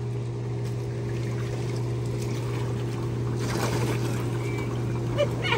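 Hot tub jets running: a steady pump hum under churning, bubbling water, with a splashier stretch around the middle.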